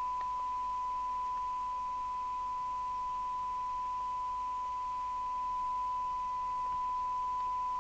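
Steady 1 kHz test tone from a Kernow Beta 2100 FM CB radio's loudspeaker: the receiver is demodulating a signal generator's 1 kHz-modulated test signal, the standard tone for a SINAD sensitivity measurement.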